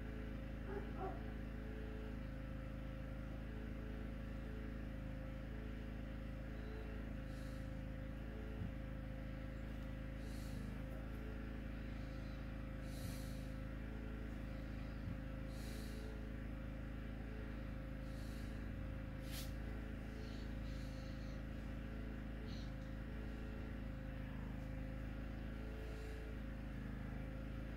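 Steady low hum with a thin, faint steady tone above it, broken now and then by brief soft hisses.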